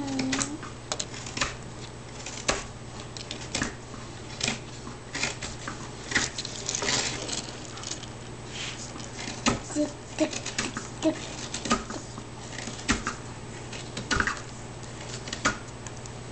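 Crooked knife (curved hook-bladed carving knife) cutting and shaving into a wooden board: a long irregular series of short slicing and scraping strokes at an uneven pace.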